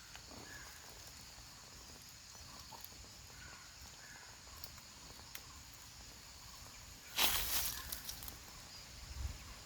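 Quiet outdoor ambience with a faint steady high hiss and a few short, faint bird chirps. About seven seconds in comes a brief loud rustle.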